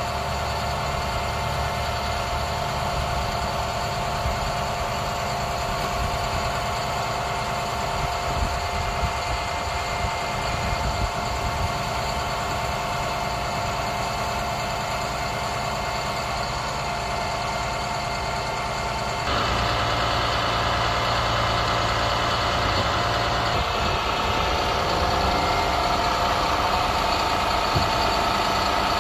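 2011 International DuraStar 4400's six-cylinder diesel engine running steadily at idle. About two-thirds of the way through, the sound steps up louder and brighter and stays there.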